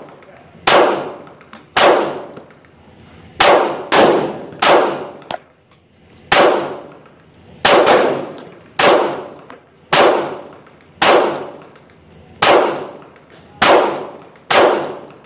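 Pistol fired in single shots, about fourteen at an uneven pace of roughly one a second, sometimes two in quick succession. Each shot rings out in a long echo off the metal roof of the covered firing line.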